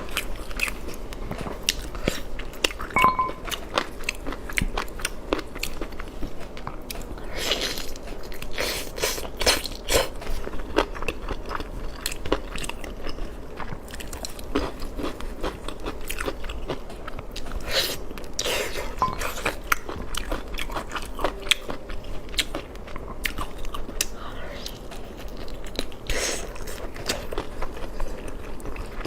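Close-miked eating sounds: a person biting into and chewing crunchy food, with a steady run of crisp, irregular crunches and crackles.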